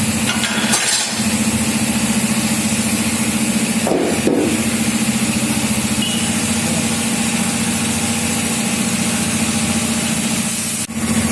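A steady engine or motor running at a constant speed, with a brief clatter about four seconds in and a short break in the sound near the end.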